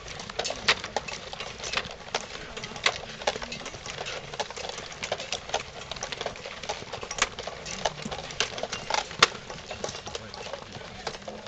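Footsteps of a group walking quickly on a dirt path, with gear and equipment clattering as they go: a run of irregular clicks and knocks, one louder knock about nine seconds in.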